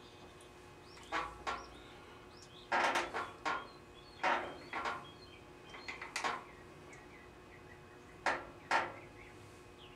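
A dozen or so short, sharp metal clacks and clunks in irregular pairs, from a Grizzly G0704 milling machine's table handwheel being cranked and the table being set to move the plate into drilling position; the spindle is not running.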